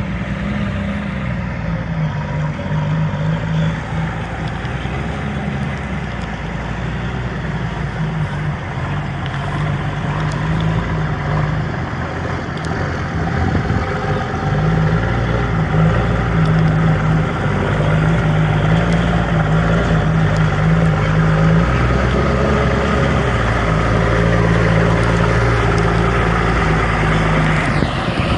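Heavy vehicle engine running steadily with a low, even hum, getting louder about halfway through.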